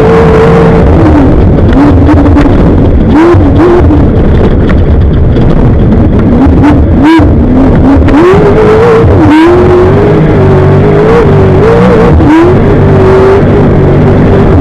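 Off-road race vehicle's engine running hard at high revs, loud, its pitch dropping and climbing back as the throttle is lifted and reapplied, with short sharp cuts about four times, over a rushing noise.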